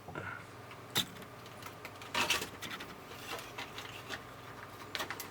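Clicks and a short rattling scrape of a circuit board and its cable connectors being handled and fitted back into a CRT television's chassis. There is a single click about a second in, the loudest scrape a little after two seconds, and two more clicks near the end.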